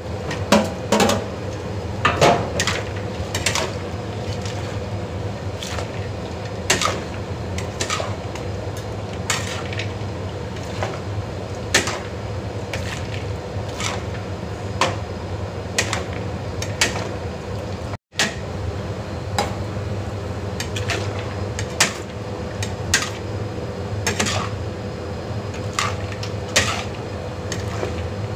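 Metal ladle and spatula clanking and scraping against a large aluminium wok while a stir-fry is tossed: irregular sharp clanks every second or two over a steady low hum.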